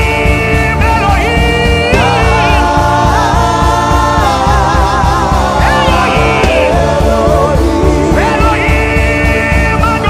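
Gospel worship song: held, sung vocal lines over music with a steady bass-heavy beat.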